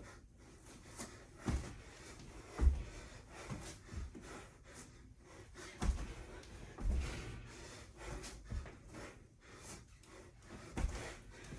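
A person doing burpees: panting breaths with dull thuds of hands and feet landing on the floor, about five of them at uneven gaps, the loudest a little under three seconds in.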